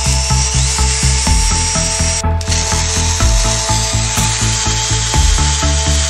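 Background music with a steady beat, over an electric drill running as its twist bit bores into a steel plate.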